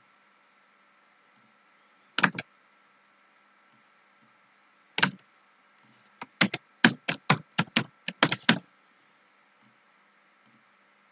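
Computer keyboard keys being pressed: a couple of separate keystrokes, then a quick run of about ten keys as a word is typed.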